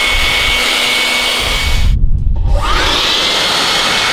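Handheld Bulle electric blower running at full speed with a high, steady whine, blowing water off a car's wet paint. About two seconds in it cuts out, then spins back up with a rising whine.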